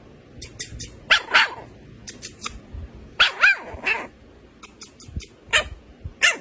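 Puppies barking: about seven short barks, several of them in quick pairs, with smaller yaps between.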